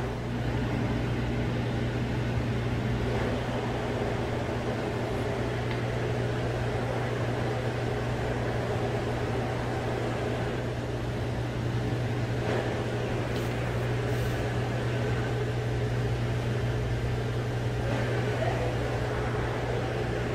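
Steady low mechanical hum of aquarium equipment, unchanging throughout, with a faint haze of background noise above it.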